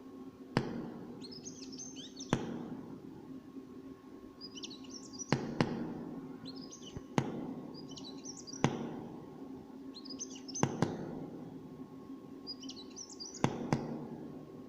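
A bird chirping in short, quick twittering phrases, one every two seconds or so, about six in all. Sharp clicks or taps, the loudest sounds, come alone or in pairs, often at the start or end of a phrase, over a steady low hum.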